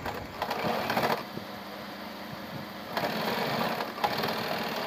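Electric domestic sewing machine stitching a seam in two runs: a short run near the start, a pause, then a longer run from about three seconds in.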